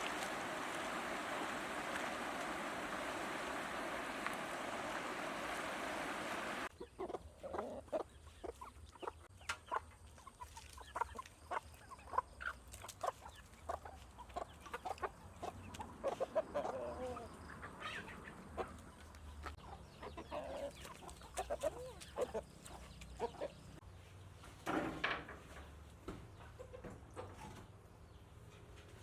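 Chickens clucking, with many short calls scattered through. It starts abruptly about seven seconds in, when a steady rushing noise cuts off.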